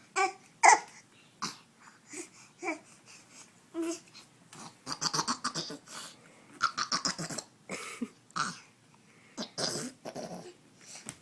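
Weird vocal noises: a string of short squeaks and grunts, with two runs of quick, breathy, laugh-like pulses around the middle.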